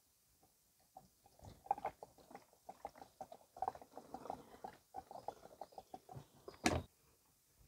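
Gasoline pouring from a plastic gas can's spout into a lawn mower's fuel tank, gurgling and glugging in short irregular bursts, with one sharp knock near the end.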